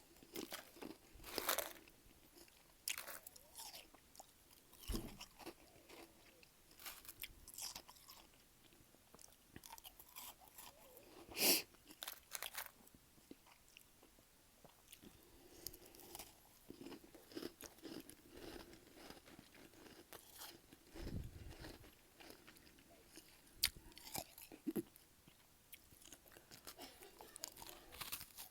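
Close-miked crunching and chewing of freezer frost: irregular sharp crunches with softer chewing between them, the loudest crunch about eleven seconds in.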